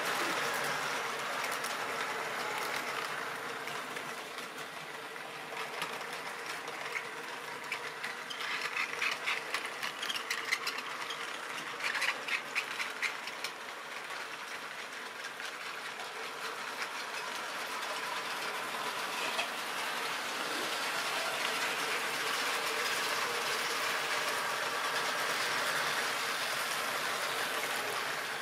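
Model railway train running on the layout track: a steady whir of the locomotive's small electric motor and rolling wheels, with a run of rapid clicking as the wheels pass over rail joints about a third of the way through.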